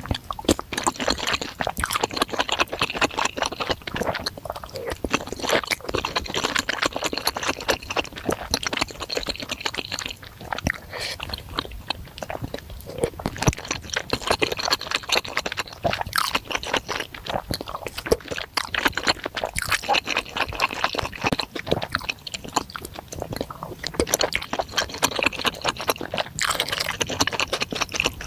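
Close-miked ASMR eating of spicy bakso meatball soup: steady wet chewing with many small mouth clicks.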